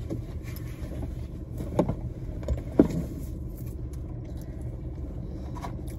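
Low steady rumble of a parked car's idling engine heard from inside the cabin, with a few short clicks, the loudest about three seconds in.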